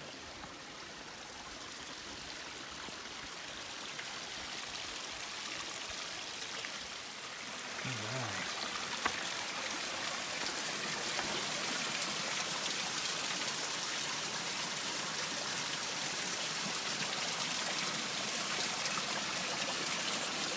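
Water from a small mountain spring trickling and splashing down over rocks as a little waterfall, a steady rushing hiss. It gets louder about eight seconds in, then holds steady.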